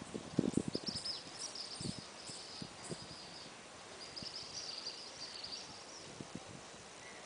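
Outdoor ambience with high twittering chirps in two stretches, one near the start and one in the middle, and a few low bumps on the microphone in the first two seconds.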